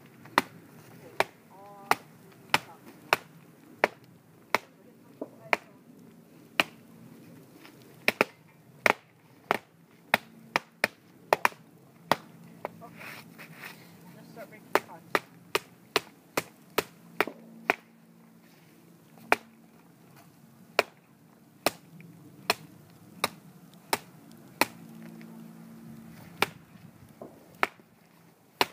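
Wood being chopped by hand: a long run of sharp chopping strikes into a tree, about one to two a second at an uneven pace.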